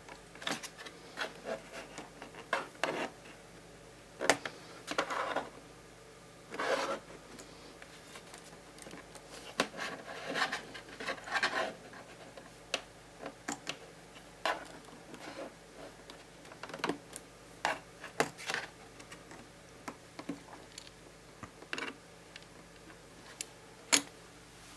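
Hard plastic clicking and scraping as a laptop keyboard is pushed and pried up out of its chassis: irregular clicks and short scrapes, with a sharp click near the end.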